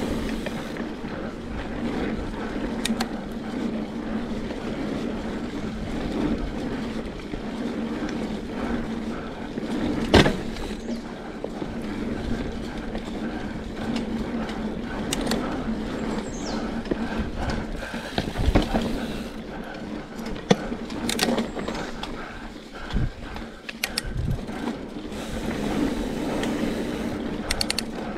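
Mountain bike rolling along a dirt singletrack: the knobby tyres run on packed dirt while the bike's drivetrain clicks and rattles. Sharp knocks come over bumps, the loudest about ten seconds in and a cluster more later on.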